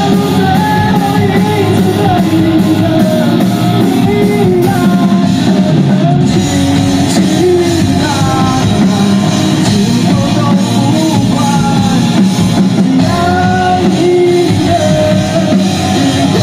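Live rock band playing: a male singer over two electric guitars, a five-string electric bass and a drum kit, loud and dense.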